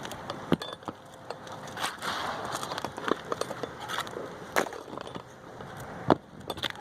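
Asphalt roofing shingles being worked by hand: gritty crunching and scraping, broken by about seven sharp, irregular knocks.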